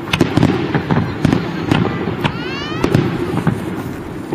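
Aerial firework shells bursting overhead: a rapid run of sharp bangs and crackling pops, with a rising whistle about two and a half seconds in. A crowd murmurs underneath.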